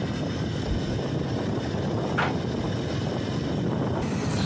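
Motorcycle riding at steady speed: engine running under a constant rush of wind noise on the microphone.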